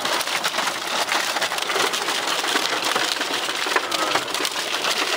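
Hailstones pelting the car's roof and glass, heard from inside the cabin: a dense, continuous clatter of small impacts over a wash of rain noise.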